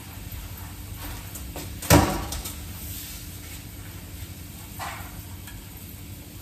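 Potato galette frying in olive oil in a pan, a steady low sizzle, with a sharp knock about two seconds in and a softer one near five seconds as things are handled on the kitchen counter.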